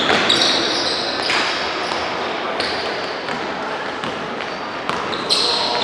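Basketball game sounds echoing in a sports hall: a ball bouncing on the court over a steady background of crowd noise.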